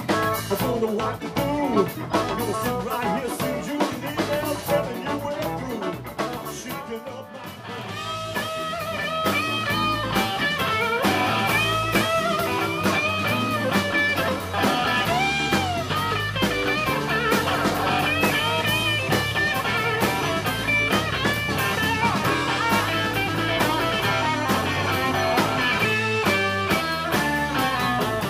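Live blues band playing, with electric guitar, bass and drum kit. The music drops back for a moment about seven seconds in. After that a harmonica, played into the vocal microphone, takes bending, wavering lead lines over the band.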